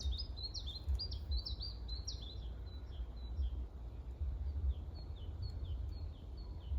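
A small songbird singing a rapid series of short, high, down-slurred notes, about four a second, louder at first and fainter after the first couple of seconds, over a low rumble.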